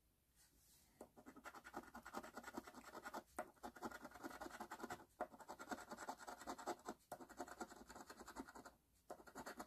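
A coin scraping the latex coating off a paper scratch-off lottery ticket in quick back-and-forth strokes. The scratching starts about a second in and comes in runs broken by short pauses about every two seconds.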